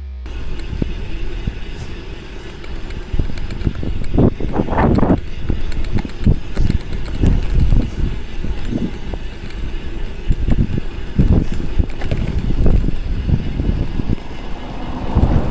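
Bicycle rolling fast on asphalt: tyre and wind rumble on the action camera's microphone, with frequent small knocks and rattles from the bike.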